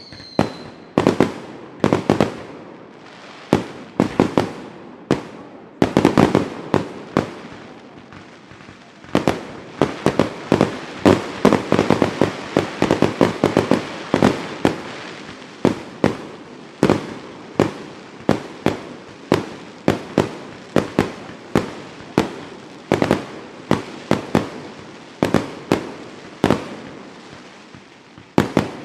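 Fireworks going off in an irregular series of sharp bangs, each with an echo trailing after it, coming thick and fast in a dense barrage through the middle stretch.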